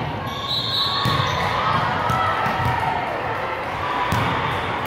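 Busy gymnasium din: balls bouncing on the hardwood floor with repeated sharp knocks, over indistinct voices of players and onlookers in the big hall.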